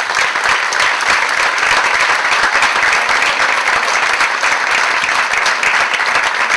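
Large audience applauding, many hands clapping in a dense, steady, loud stream.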